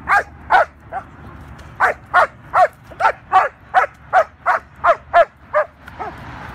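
A year-and-a-half-old female German Shepherd barking fast and repeatedly at a decoy in a bite suit during protection training. There are about fifteen sharp barks, two or three a second, with a short break after the first few, and they stop about six seconds in.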